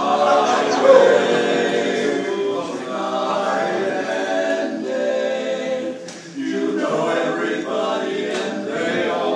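Small group of men singing barbershop harmony a cappella, holding sustained chords. The singing breaks off briefly about six seconds in, then the next phrase begins.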